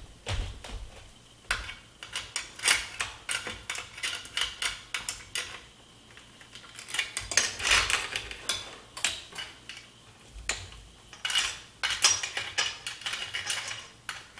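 Bicycle chain clinking and rattling as it is handled, many quick metallic clicks in irregular clusters with short pauses between.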